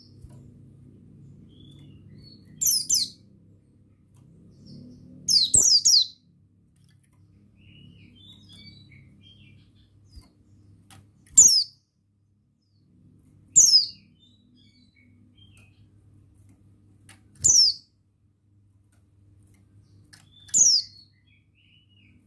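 Pleci buxtoni white-eye calling: about six short, high chirps, each sweeping downward in pitch, spaced a few seconds apart over a faint low hum.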